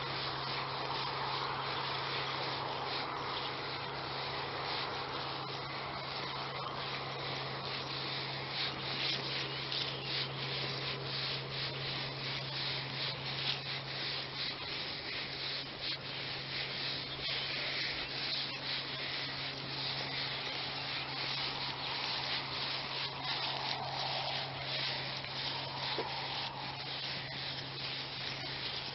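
Continuous rustling and scuffing of footsteps through long grass as the walkers follow the tracking dog, with irregular swishes throughout and a low steady hum underneath.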